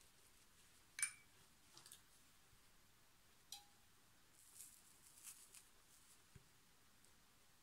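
Quiet tabletop handling of craft tools: a sharp clink about a second in and a smaller clink at about three and a half seconds as the starch brush is put down and the small applique iron picked up, then faint soft rustling.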